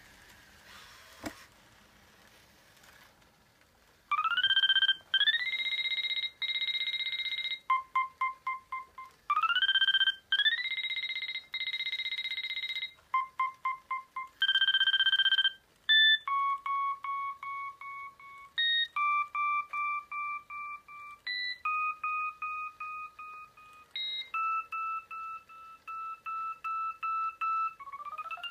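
Sony AIBO ERS-210 robot dog playing its electronic tone sounds: rising chirps and held beeps, bursts of rapid short beeps, then a string of pulsing tones that step in pitch, ending on a rising glide.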